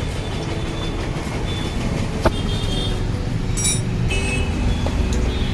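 Steady road traffic rumble with several short horn toots, and a single sharp click about two seconds in.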